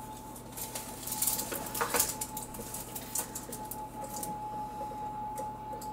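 Light clinks and rustling of cake layers being handled on wire cooling racks and a foil-covered cardboard cake board, busiest about a second or two in, over a steady faint high-pitched hum.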